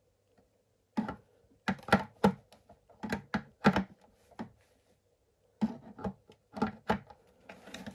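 Hard plastic knocking and clunking as the tail section of a Jurassic World Dominion Dreadnoughtus toy is worked and forced onto its peg in the body. A quick run of sharp knocks, a short pause, then another run.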